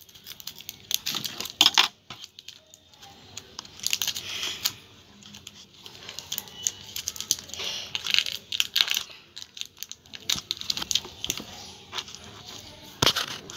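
Plastic wrapper of a super clay packet crinkling and rustling in short bursts as it is snipped open with scissors and the soft clay is peeled out of it, with a sharp click near the end.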